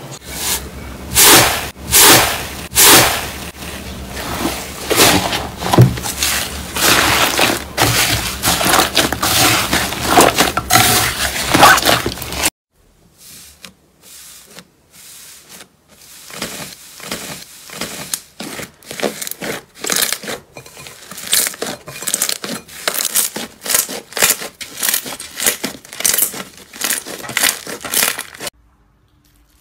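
Hands pressing and squishing slime: a dense run of loud crackling and crunching pops, then after a sudden break about halfway through, softer clicking and popping as a glossy slime is pressed and stretched.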